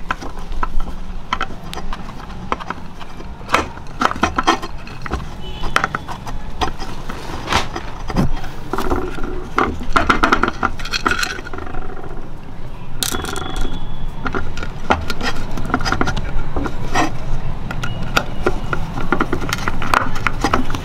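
Hand screwdriver turning the screws that clamp an LED circuit board down against a metal street-light housing: irregular small clicks and scrapes of metal on metal.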